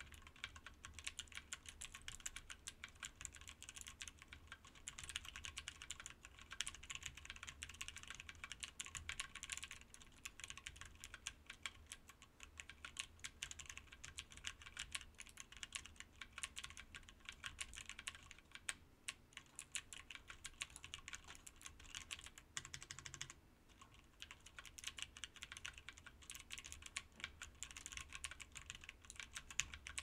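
Mechanical keyboard built with a mix of clicky, tactile and linear switches, a different switch on every key, typed on rapidly and continuously: a dense stream of key clacks and clicks, with a brief pause a little after two-thirds of the way through.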